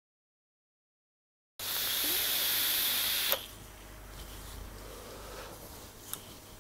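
Hiss of a long draw through a rebuildable dripping atomizer with a single Clapton coil firing, starting about a second and a half in and cutting off sharply after under two seconds. A softer, breathy rush of exhaled vapour follows.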